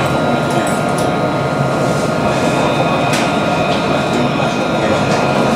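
Montpellier line 1 tram running, heard from on board: a steady rumble of wheels on rail. A thin steady whine comes in about two seconds in, and there are a few light clicks.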